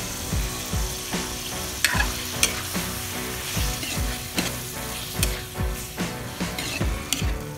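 Chicken livers sizzling in an aluminium wok while a metal ladle stirs them, clinking and scraping against the pan now and then.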